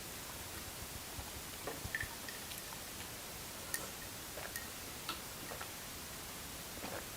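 Quiet eating sounds from a person eating noodle soup: scattered soft clicks and small mouth noises, a few a second, over a steady background hiss.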